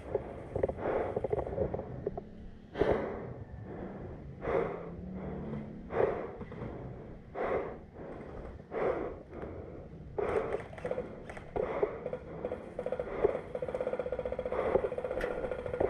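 A person breathing heavily close to the microphone, about one loud breath every second and a half.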